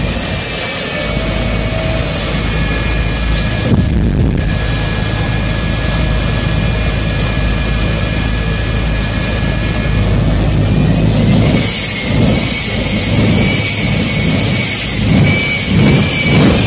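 Drag-racing jet truck's jet engine running on afterburner at the start line, shooting flames: a loud, steady roar with a high turbine whine held over it. About twelve seconds in, the roar starts swelling and fading in a series of surges.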